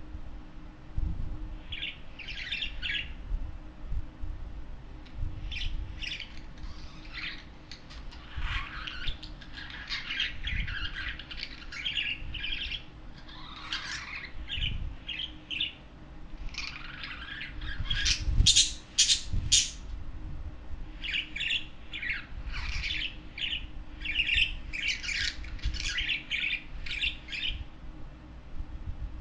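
Budgerigars chattering in short chirps and squawks that come in bursts, with a run of sharper, louder calls a little past the middle.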